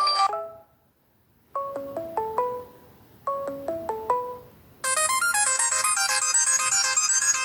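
Samsung Galaxy Ace 2 stock ringtones playing in turn. One melody ends, and after a short gap a brief phrase of four or five falling notes plays twice. Then a busier, brighter electronic ringtone starts about five seconds in.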